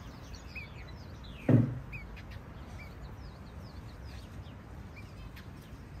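Small aviary birds giving short, scattered chirps, with one brief, louder low sound about a second and a half in.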